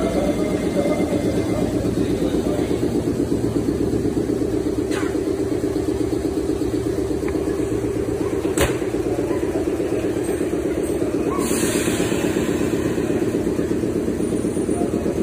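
Steady, fast-pulsing mechanical hum from a red Meitetsu electric train, consistent with the train standing at the platform with its equipment running. A single sharp click comes a little past the middle, and a short hiss of air follows about three-quarters of the way through.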